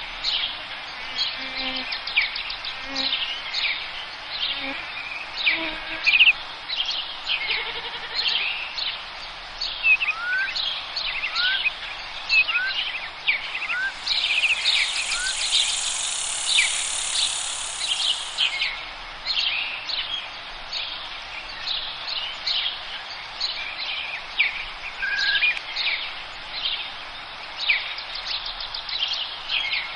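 Forest birdsong chorus: many birds chirping and trilling in quick, overlapping high calls. About a third of the way in, one bird gives a run of five short rising whistles. A steady high hiss sounds in the middle and stops again after a few seconds.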